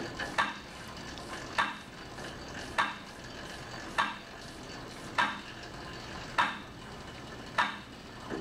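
Cycle ergometer being pedalled against resistance: a steady hiss with a sharp swishing click repeating evenly about every 1.2 seconds, in step with the 50 rpm cadence of the YMCA test.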